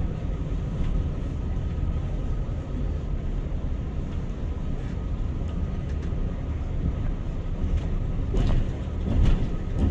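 Steady low rumble of airliner cabin noise, with two faint steady tones above it and a few knocks near the end.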